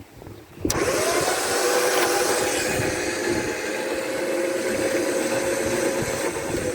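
Electric trailer winch motor starting under load, with a whine that rises briefly as it spins up and then holds steady over a loud hiss while it pulls, dipping once near the end.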